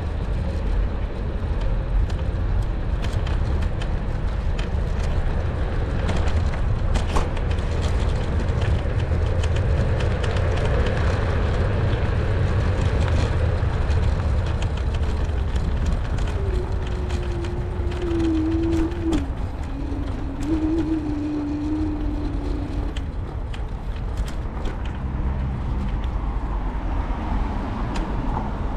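Steady low rumble of wind and road noise while riding a NIU KQi3 Pro electric scooter, with small clicks and rattles from bumps. Past the middle, a wavering hum comes in for several seconds.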